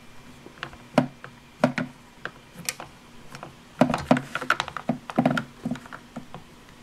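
Hard plastic clicking and tapping as a Play-Doh playset's tooth mold is handled and pressed down over white Play-Doh: a few separate knocks, then a quick run of clicks about four to five and a half seconds in.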